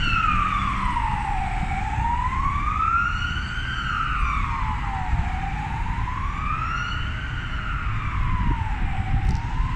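Ambulance siren in a slow wail, its pitch rising and falling about every three and a half seconds, over low traffic rumble.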